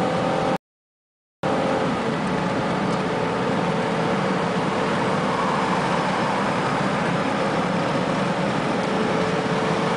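Car engine and road noise inside the cabin while the car accelerates up to highway speed: a steady rush with a faint engine hum underneath. The sound drops out completely for under a second just after the start.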